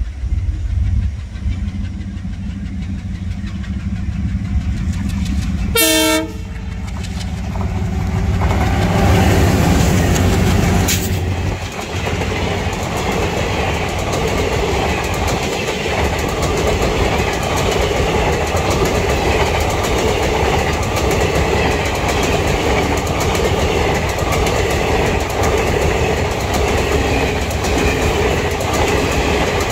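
Twin ALCO diesel locomotives approach with a low engine rumble and sound a short horn blast about six seconds in, then pass close by, loudest a few seconds later. The passenger coaches follow with steady wheel and rail noise and clickety-clack over the joints.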